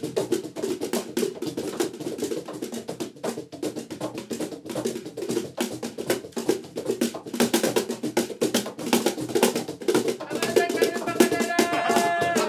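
Small wooden lap cajon played with the fingertips: fast, dense rolls of taps and slaps on the wooden box. About ten seconds in, a held pitched tone joins over the drumming.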